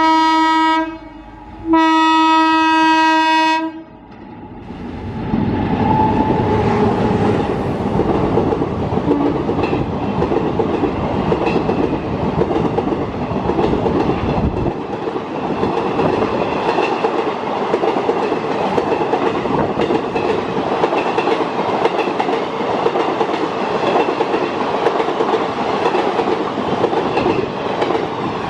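Two blasts on an Indian Railways electric locomotive's horn, the first ending about a second in and the second lasting about a second and a half; then, from about five seconds in, ICF passenger coaches rushing past at speed with steady wheel clatter on the rails.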